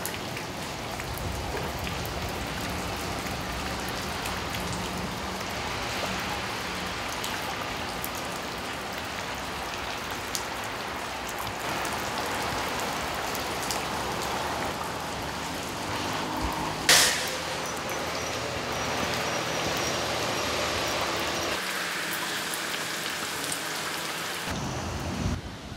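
Heavy rain falling steadily during a thunderstorm, with one sharp crack about two-thirds of the way through.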